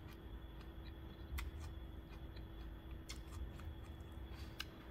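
A person quietly chewing a mouthful of seasoned chickweed salad, with a few faint soft clicks scattered through.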